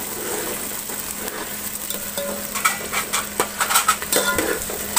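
Sliced onions sizzling as they shallow-fry in oil in a large metal pot, stirred with a metal ladle. The ladle scrapes and clinks against the pot, most busily in the second half.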